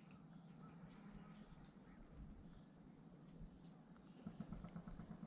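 Faint insect song: a single steady high-pitched note, most likely a cricket, that stops for under a second about two and a half seconds in and then resumes.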